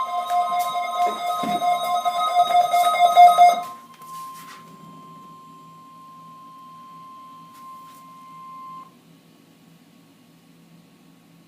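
Keyboard-like music for about the first four seconds, over a steady single-pitched beep. The beep is the NOAA Weather Radio warning alarm tone, the signal that switches on weather alert receivers. It carries on alone at a lower level once the music stops, then cuts off about nine seconds in.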